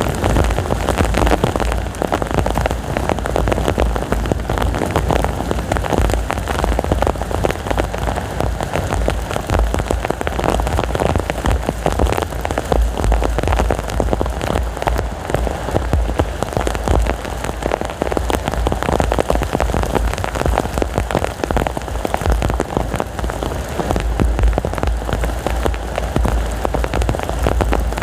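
Heavy rain falling steadily, a dense, constant patter of drops, with strong wind adding a low rumble underneath.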